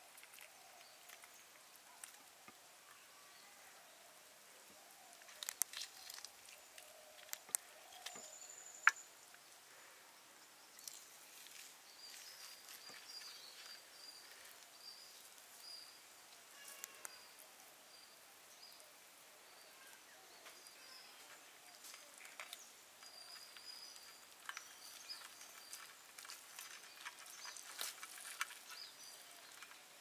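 Faint sounds of hands tearing apart a whole cooked chicken: soft scattered clicks and crackles, busiest about five to nine seconds in. A high chirp repeats in the background from about twelve seconds in.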